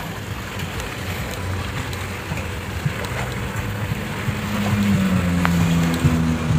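Low rumble of a yacht's engine running, with wind on the microphone. A steady low hum joins about four seconds in and the sound grows louder.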